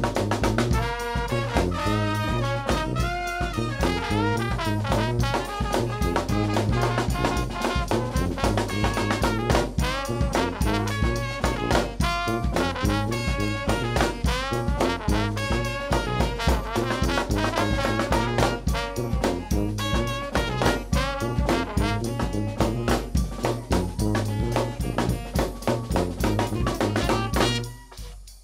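New Orleans brass band playing live: trumpet, trombone, saxophone and flute over a sousaphone bass line, with bass drum and snare drum keeping a steady beat. Near the end the band stops for a brief break.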